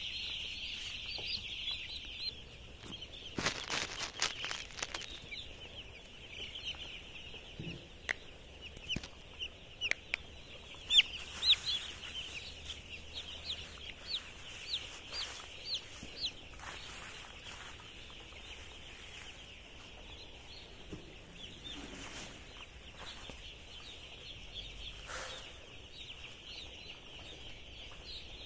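A large flock of young broiler chicks peeping constantly, a dense chorus of high chirps. Single loud, short, falling peeps from chicks close by stand out, most of all in the middle. A brief scratchy rustle comes about three seconds in.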